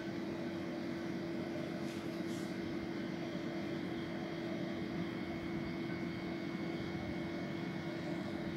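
Steady machine hum with one strong constant tone, unchanging in level.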